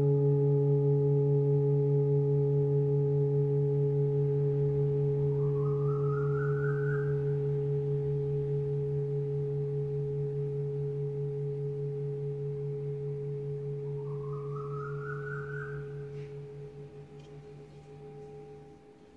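Old Tibetan singing bowl ringing with a deep sustained hum and several steady overtones, slowly fading. Twice a brief higher shimmer rises over it, and the ring dies away near the end.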